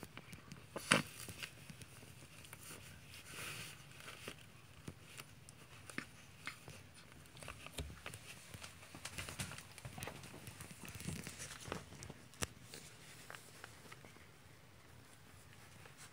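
A small dog chewing and pawing a plush popcorn-bag squeaky toy: irregular rustling and crinkling with scattered soft clicks, and one sharper, louder sound about a second in.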